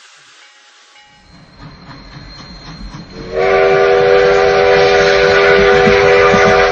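Steam locomotive whistle with several notes sounding together: one long, loud blast starting about halfway through and held to the end. It is over the low rumble of the running train, which begins about a second in.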